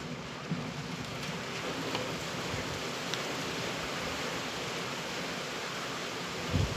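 Steady hiss of falling rain, with a brief low thump near the end.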